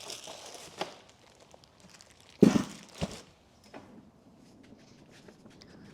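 Drill-press packaging being unpacked: rustling and crinkling of wrapping, then one loud thud about halfway through, a smaller knock just after, and faint scattered clicks.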